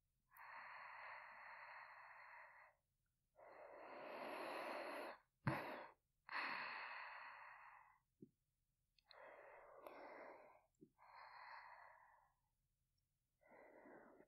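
A woman breathing softly close to a binaural dummy-head microphone: about seven slow breaths and sighs in and out, with a short sharp intake about five and a half seconds in.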